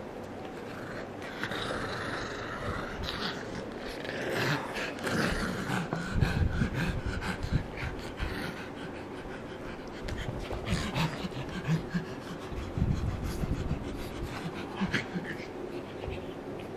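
Two pugs breathing noisily and making short low grunts in irregular bursts as they mouth and tug at a plastic hole-ball toy, loudest through the middle, with small clicks among them.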